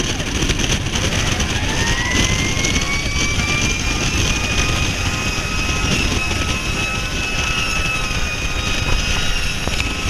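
Fire engine running on an emergency response, its siren rising in pitch over about two seconds and then holding a steady high tone. Under it are heavy wind buffeting on the outside-mounted microphone and the noise of the engine and the road.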